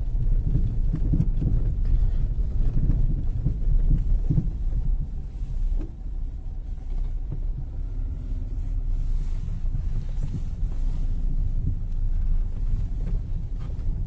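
Car driving on a rough dirt track, heard from inside the cabin: a steady low rumble of engine and tyres, with frequent small knocks and bumps from the uneven ground.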